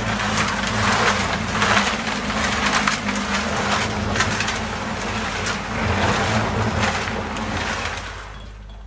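Portable concrete mixer running: gravel and concrete churning and rattling in the turning drum, over the steady hum of its motor. The noise surges and eases about once a second, then drops away about eight seconds in.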